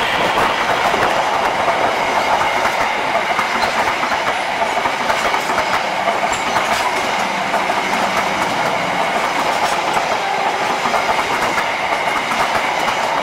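Railway passenger coaches rolling past on the adjacent track, their wheels clicking steadily over the rail joints in a continuous rumble.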